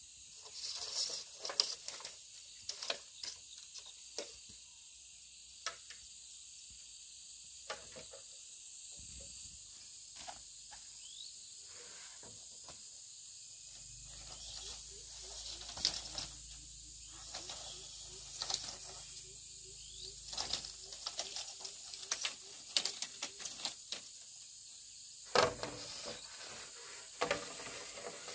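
Steady high-pitched insect chirring, with scattered rustles and clicks throughout.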